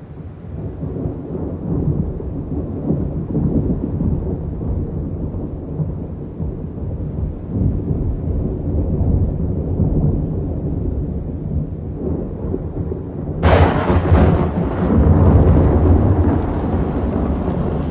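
Thunder rumbling low and continuously from a storm over the forest. About thirteen seconds in, a sudden louder, harsher noise cuts in over it and carries on.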